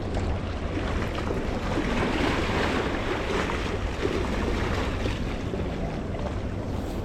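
Sea water washing against the rocks, swelling about two seconds in, over steady wind noise on the microphone.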